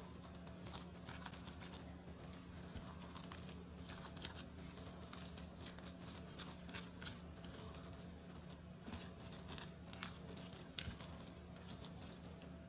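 Scattered light clicks and crinkling rustles of hands handling food and kitchen things, over a steady low hum.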